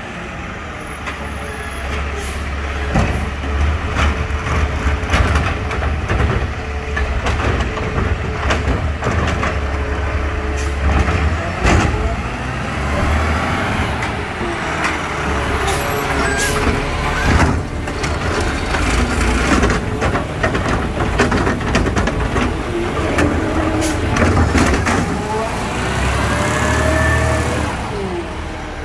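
Automated side-loader garbage truck working its way along the street: diesel engine running with a steady low rumble, air brakes hissing as it stops, and repeated sharp bangs and clanks from the lifting arm and carts, loudest in the middle.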